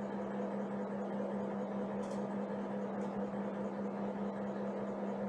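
Steady electrical hum with an even hiss, holding one low pitch throughout. A faint short click about two seconds in.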